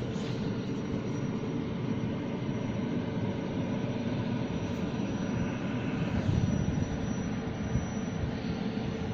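Caterpillar 745 articulated dump truck's diesel engine running steadily, heard from inside the closed cab, with a constant hum over the low rumble.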